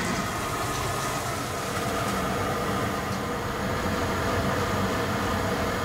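Steady sizzling of potato vadas deep-frying in a large kadhai of hot oil, over a constant low rumble.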